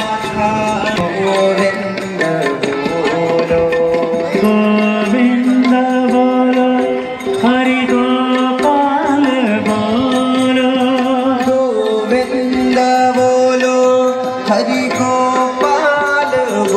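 Hindu devotional music: a Sanskrit mantra sung over a steady held drone, the melody gliding up and down without a break.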